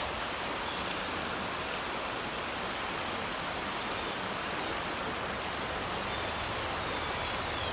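Creek water running: a steady, even rush with no breaks.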